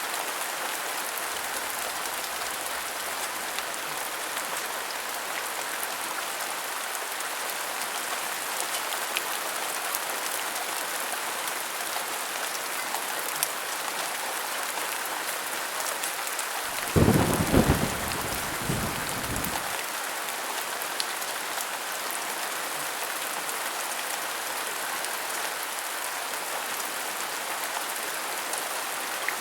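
Steady heavy rain falling. A little past halfway, a thunderclap sounds: a loud low rumble lasting about three seconds.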